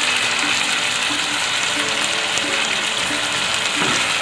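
Chicken pieces sizzling steadily in hot oil in a non-stick pan as a thick capsicum paste is poured over them, with a wooden spatula starting to stir near the end.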